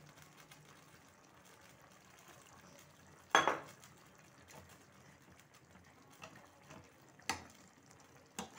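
Water poured from a bowl into a kadhai of cooking vegetables, a faint pour broken by a sharp knock of the bowl against the pan about three seconds in and lighter knocks near the end.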